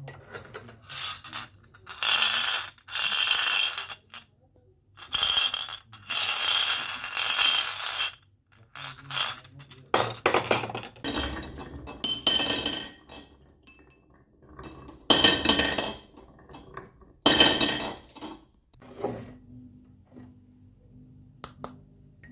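Marbles rolling and clattering down a toy marble run track, clinking against the track and each other. It comes as a series of runs, each one to two seconds long, with short sharp clinks between them.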